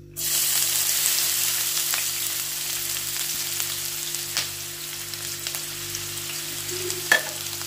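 Chopped onion dropped into hot oil in a pot, sizzling loudly as it starts to fry. The sizzle starts suddenly and eases slowly, with a few light knocks and one sharper one near the end.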